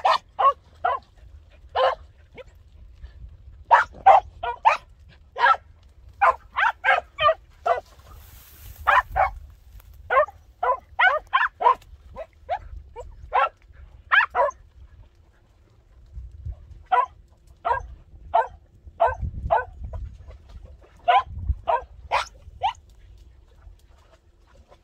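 Podenco orito (small Spanish hunting hound) barking over and over in short, sharp barks, several a second in runs separated by brief pauses.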